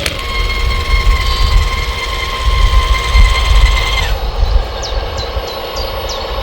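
Steady high electric whine of a radio-controlled construction model's motor, over a low rumble; the whine falls away about four seconds in, and a run of short, high, falling chirps follows near the end.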